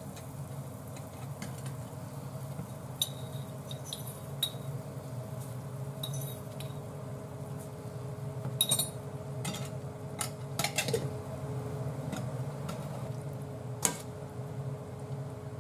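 Scattered sharp clinks and taps of a glass jar, a metal ladle and a wire-mesh strainer against a saucepan. The loudest cluster comes about halfway through, and a sharp click near the end is the strainer being set on the pot rim. Under it runs the steady low hum of an induction cooktop.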